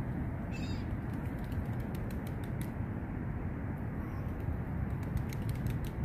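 A steady low rumble, with a short mewing gull call about half a second in and faint scattered clicks.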